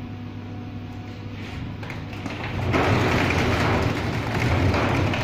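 Quail egg boiling and shelling machine running with a steady hum, then about two and a half seconds in a sudden loud rush as water and boiled quail eggs pour from its drum into a plastic crate.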